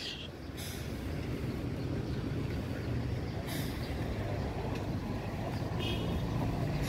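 Diesel bus engine idling, a steady low rumble, with two brief hisses about half a second and three and a half seconds in.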